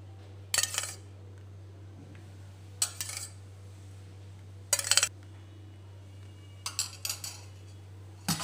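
A metal spoon scraping and clinking against the tray and banana leaf in four or five short strokes, about two seconds apart, while lime juice is spread over marinated chicken. A steady low hum runs underneath.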